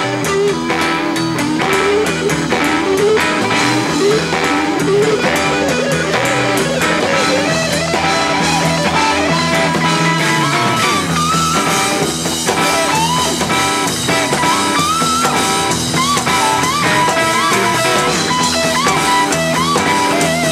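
A rock band playing an instrumental blues-rock piece: electric lead guitar lines with bent notes over bass and drums. The lead climbs higher about halfway through.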